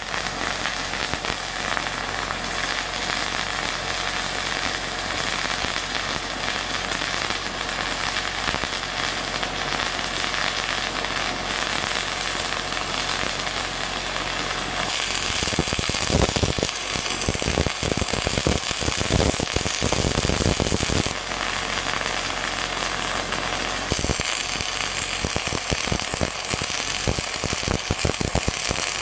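Self-shielded flux-core arc welding with Lincoln NR-232 .068 in wire from an LN-25 wire feeder: a continuous, loud crackling, sizzling arc as a bead is dragged. About halfway the crackle turns louder and harsher, eases off briefly a few seconds later, then picks up again.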